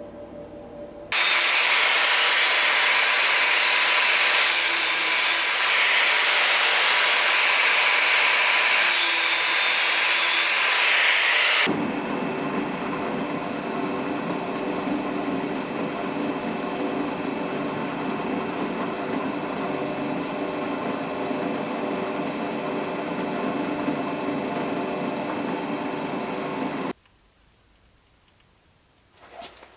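A power tool working wood on a knife handle: a loud, steady grinding hiss that starts suddenly about a second in. About twelve seconds in it changes abruptly to a lower, steadier machine sound with a hum of held tones, which cuts off shortly before the end.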